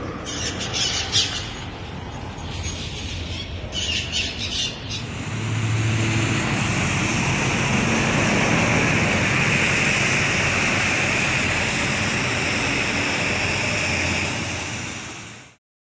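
Storm wind and heavy rain: a loud, even rushing noise that builds about five seconds in and holds until it cuts off abruptly near the end. Before it builds, two brief high-pitched squeals sound over a lower rush of wind.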